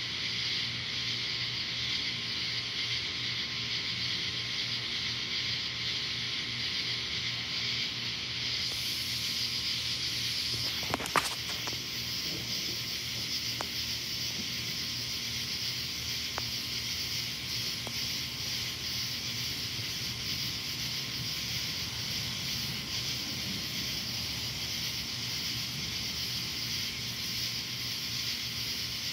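Steady, shrill chorus of night insects, over a low steady hum. One sharp click about eleven seconds in.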